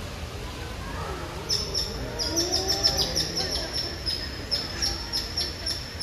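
A bird chirping: a short, high chirp repeated about three times a second, starting about a second and a half in.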